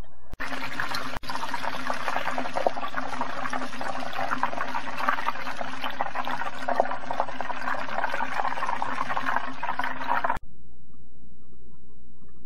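Chicken thigh pieces deep-frying in a pan of hot oil, sizzling and crackling steadily with a low hum beneath. The sizzling cuts off suddenly about ten seconds in, leaving only a faint low hum.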